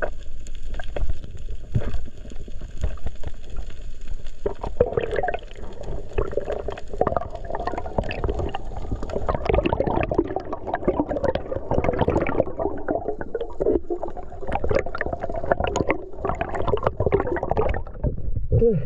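Underwater water noise heard through a diving camera housing as a freediver swims up toward the surface: quieter at first, then a choppy rushing and gurgling from about five seconds in, with a short falling gurgle as he breaks the surface near the end.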